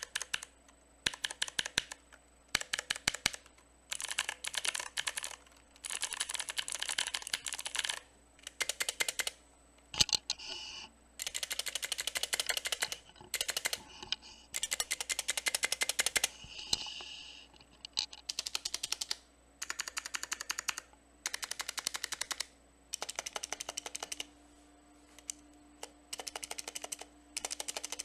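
Mechanical keyboard with HyperX clicky blue switches being typed on fast, in runs of rapid key clicks a second or two long with short pauses between, picked up by a cheap webcam microphone.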